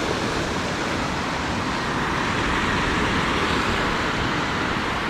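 Steady rushing noise of a small fan blowing air into a campfire as the firewood catches, growing slightly brighter about two seconds in.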